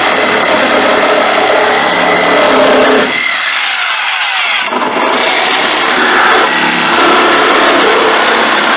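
A loud power tool runs steadily, used for cutting. About three seconds in it lets off and its pitch falls as it spins down, then it runs up to full speed again about five seconds in.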